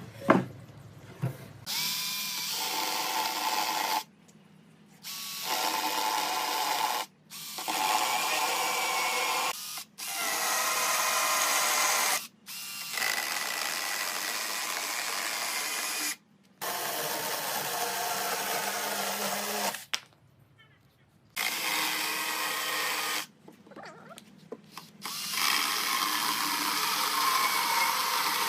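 A sharp knock, then an electric power tool, likely a drill, running in about eight short runs of two to four seconds each, stopping abruptly between runs.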